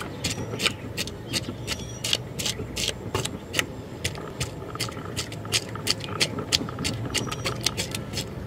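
Knife scraping the scales off a large catla carp: quick, repeated rasping strokes, several a second, as the blade is dragged along the fish's side.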